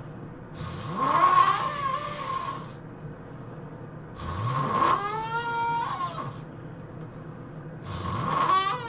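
A person snoring loudly: three snores about three and a half seconds apart, each sliding up in pitch and ending in a high, wavering tone.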